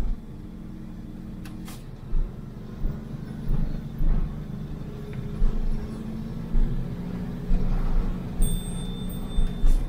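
A vehicle's engine running steadily while driving down a mountain road, with irregular low thumps from bumps or buffeting every second or so and a single sharp click near the start.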